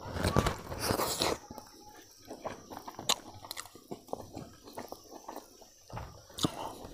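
A man biting into and chewing chicken close to a clip-on microphone: a loud bite in the first second or so, then quieter chewing with a few sharp clicks.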